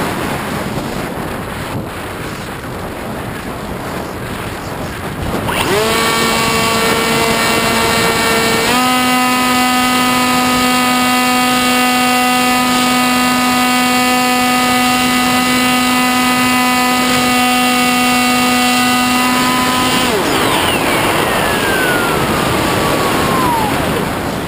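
Wind rushing over an RC plane's onboard camera in flight. About six seconds in, the Sky Surfer's electric motor and propeller spin up to a steady whine, step up a little in pitch a few seconds later, and cut off about twelve seconds after that. A high whistle then falls steadily in pitch over the last few seconds.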